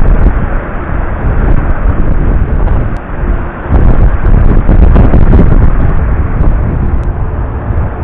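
Wind buffeting the camera's microphone: a loud, uneven low rumble that eases briefly about three seconds in and then picks up again.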